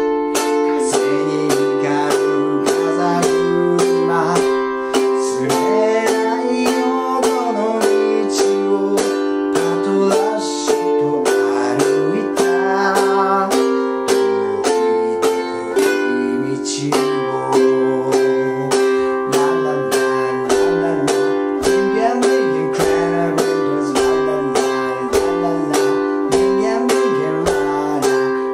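A man singing a Japanese song to his own steady ukulele strumming in simple chords (C, G7, F).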